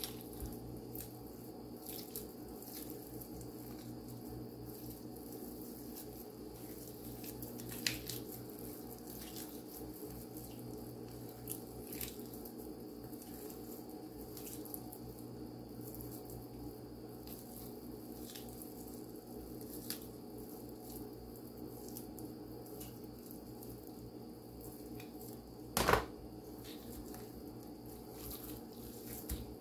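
Cooked chicken being pulled apart by hand: soft, wet tearing and squishing of meat with scattered light clicks, over a steady low hum. A sharper knock comes about a quarter of the way in, and the loudest knock comes near the end.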